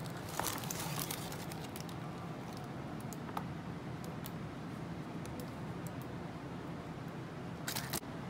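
Plastic scoop and plastic tub being handled while scooping powder: scattered clicks, scrapes and rustles, busiest in the first second and a half and again near the end, over a steady low hum.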